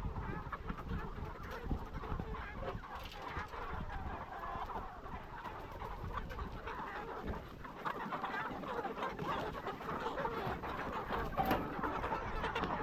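A flock of chickens clucking, many overlapping calls going on without a break.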